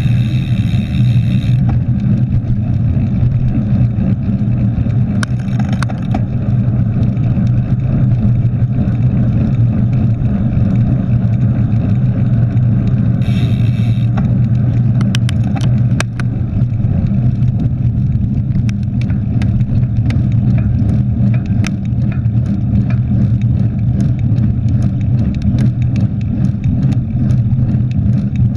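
Steady low rumble of wind and tyre noise on a handlebar-mounted camera as a mountain bike rides fast on tarmac. A brief high squeal comes near the start and again about halfway through. From then on the bike rattles and clicks over small bumps.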